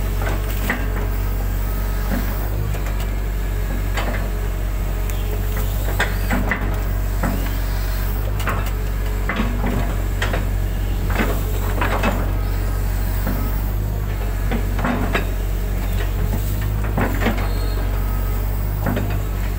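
Hitachi hydraulic excavator working, its diesel engine giving a steady low hum while the bucket handles wet mud, with frequent irregular knocks, clunks and rattles from the machine and bucket.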